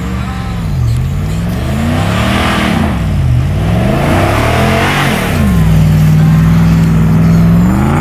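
Dodge Ram 2500 Power Wagon's 6.4-litre HEMI V8 revving up and down several times as the truck drives hard through deep snow, with a hiss of spinning tyres throwing snow twice. The revs are then held high and steady for about two seconds before dropping off near the end.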